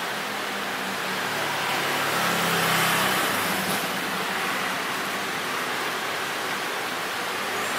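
A motor vehicle passing on the street, its engine hum swelling to the loudest point about two to three seconds in and then fading, over a steady hiss of traffic noise.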